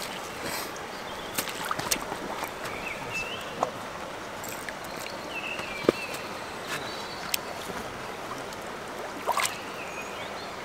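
Water splashing and lapping, with scattered light knocks, the loudest about halfway through, and a few short high chirps.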